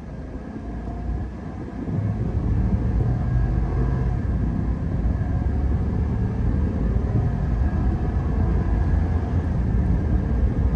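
Chevrolet 2500HD's 6.6-litre gas V8 accelerating hard uphill, heard from inside the cab. The engine gets louder about two seconds in and stays loud as the truck picks up speed.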